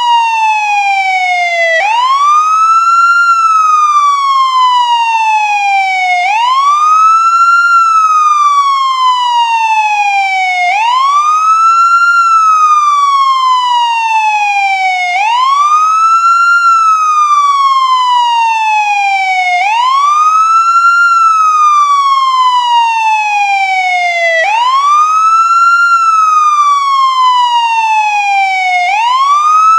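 American ambulance siren on its wail setting: a single pitch that sweeps up quickly and then glides slowly down, repeating about every four and a half seconds.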